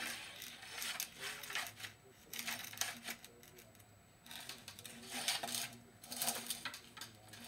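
Rummaging off camera: small hard objects clattering and scraping in short clicky bursts of about a second, five or so of them.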